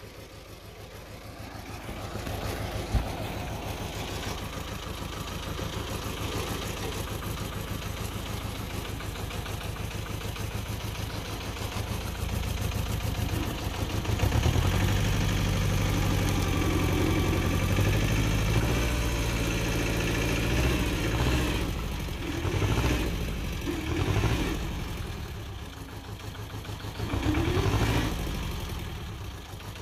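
Agria 4900 compact tractor engine idling, then from about fourteen seconds in working louder under load as it pulls on a tow rope to uproot a bush. Near the end the revs rise and fall several times as the tractor hesitates without its differential lock engaged.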